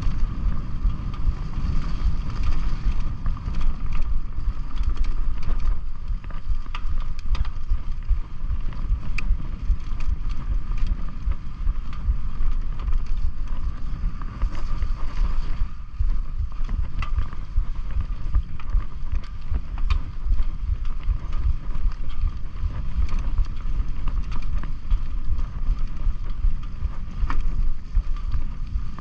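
Mountain bike riding a dirt singletrack: wind buffeting the microphone and a steady rumble of tyres over rough ground, with many sharp rattling clicks from the bike over bumps and a steady high hum.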